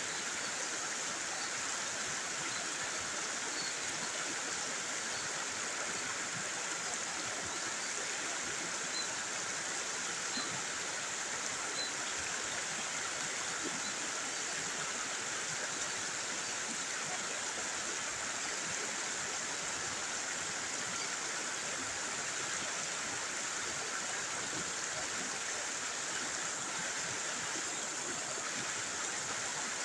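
River water flowing over the riverbed: a steady, even rush with no pauses.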